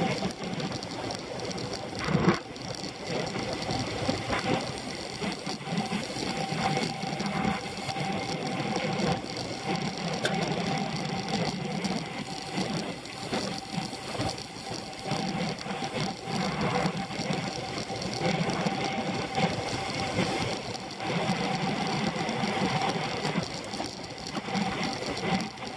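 A road racing bike in motion, heard through a handlebar-mounted camera: a steady rattling buzz of road vibration, tyre and wind noise, with one sharp knock about two seconds in.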